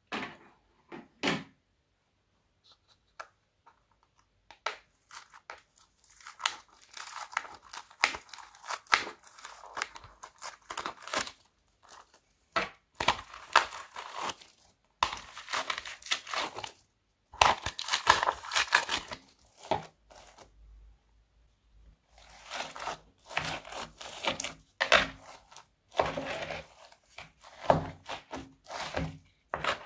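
Foam beads crackling and crunching as hands squeeze and work them, in dense bursts a second or two long with short pauses between and only a few scattered clicks at first. Near the end the beads are stirred into fluffy slime.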